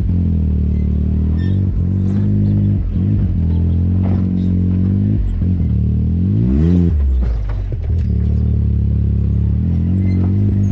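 ATV engine running at low speed over a rocky trail, its pitch dipping and rising with the throttle, with one quick rev up and back down about two-thirds of the way through. Rocks and the machine's parts clatter now and then.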